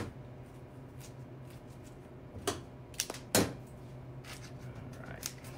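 Sprigs of fresh greenery being handled and worked into an arrangement, with a light rustle and three sharp clicks about halfway through, the last the loudest. A steady low hum runs underneath.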